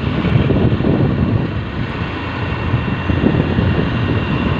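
Steady wind rush over the microphone mixed with road and engine noise from riding through traffic.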